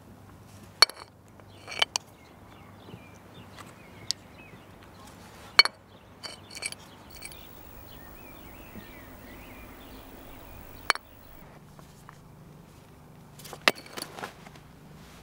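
Scattered sharp clinks and taps, about nine in all, some in quick pairs, over a faint low hum.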